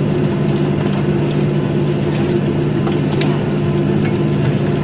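Steady cabin drone of a Boeing 737-800 taxiing, its CFM56-7B turbofans running at low power with a constant low hum over airflow hiss, and a few brief faint clicks.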